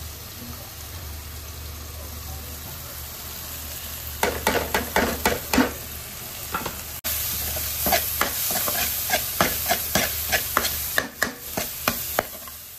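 Tadka of onion, tomato and spices frying in desi ghee in a kadhai, with a steady sizzle. From about four seconds in, the mixture is stirred and the utensil scrapes against the pan in quick repeated strokes.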